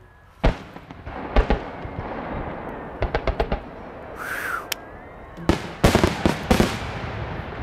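Fireworks salute: aerial shells firing from mortars and bursting overhead in a series of sharp bangs, with a brief whistle about four seconds in. The loudest cluster of bursts comes around six seconds, followed by a rumbling, crackling echo.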